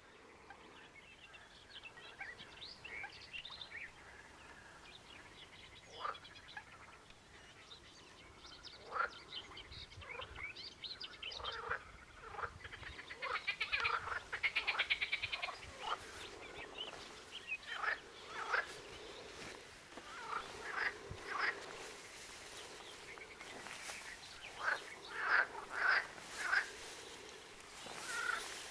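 Frogs croaking in a chorus of short calls, with a long rattling croak about halfway through, and birds calling here and there.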